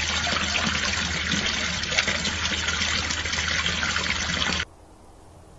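Water splashing and trickling steadily over a small garden fountain. It cuts off suddenly near the end, leaving only a faint hiss.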